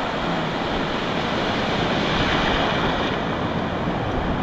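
Breaking surf and waves washing through the shallows, a steady rushing noise, with wind on the microphone.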